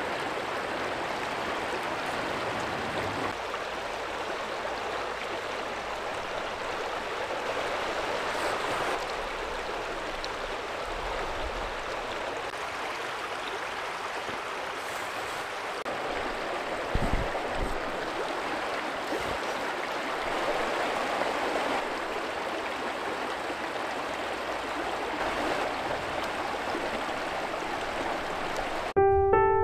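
Shallow stream running over stones: a steady rush of water. A brief low thump about two-thirds of the way through, and piano music comes in at the very end.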